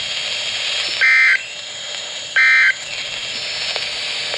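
Emergency Alert System end-of-message data bursts on NOAA Weather Radio: two short bursts of two-tone digital data about a second and a half apart, the last of a set of three that closes the alert broadcast. A steady radio hiss runs beneath.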